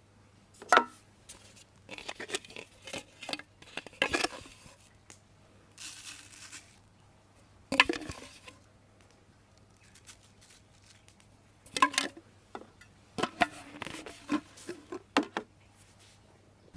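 Irregular sharp knocks and clicks with bursts of scraping and crackling, as things are handled; the three loudest knocks come about a second in, near the middle and about three quarters through.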